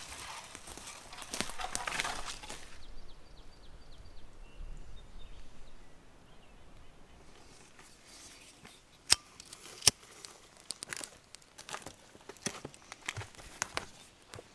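Bundle of dry twigs rustling and snapping as it is handled, then a match struck about nine seconds in with a second sharp click just after. Small scattered crackles follow as the twig kindling catches fire.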